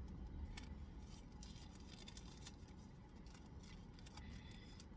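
Faint rustling and scattered small clicks of hands rummaging through a purse.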